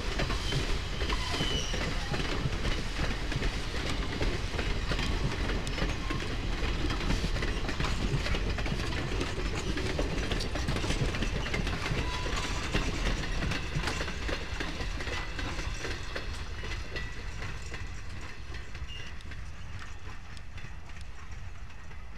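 A steam-hauled train of wooden passenger coaches rolling past, its wheels clicking over the rail joints. The sound fades over the last several seconds as the train moves away.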